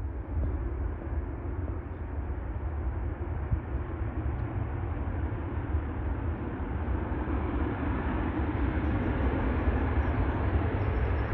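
Jet engines of a Ryanair Boeing 737 rumbling as it rolls along the runway after landing, a steady rushing roar that grows gradually louder.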